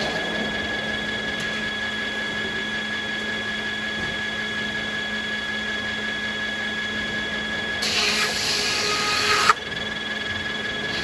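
Sawmill machinery running with a steady whine. About eight seconds in, a saw cuts through American beech for about a second and a half, then stops abruptly.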